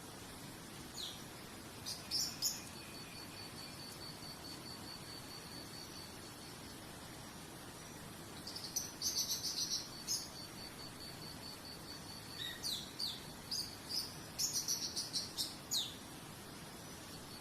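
Birds chirping in short clusters of quick, often down-sweeping calls, densest about nine seconds in and again in a run near the end, over an insect's steady high trill and a soft hiss.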